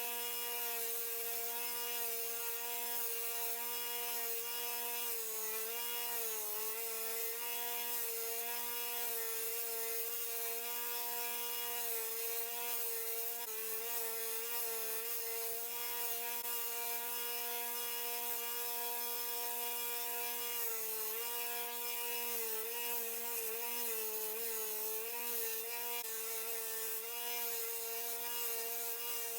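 Small 1x30 belt sander running steadily while a wooden knife handle is ground down to the tang, its motor pitch dipping briefly as the work is pressed into the belt: about 6 seconds in and several times near the end.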